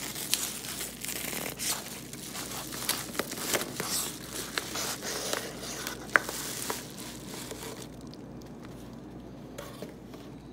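Brown paper mailer envelope being torn open and crumpled by hand: a dense run of paper crinkling and ripping that dies down about three quarters of the way through.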